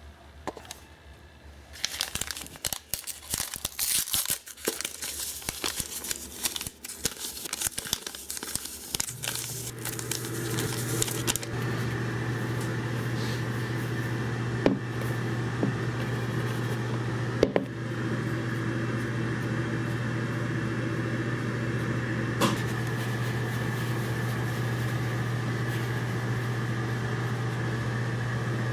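Packaging crinkling and tearing with sharp clicks, then a steady machine hum starts about nine seconds in and runs on, broken by a few single clicks.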